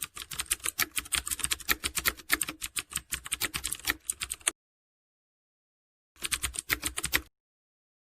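Rapid, uneven clicking of keys being typed, a run of about four and a half seconds, then a short pause and another burst of about a second.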